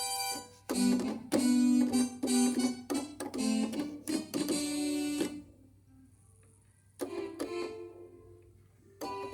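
Nord Stage 3 stage keyboard playing a preset sound: a run of struck chords with sharp attacks, then the sound dies away about five seconds in, followed by two separate chords that ring and fade.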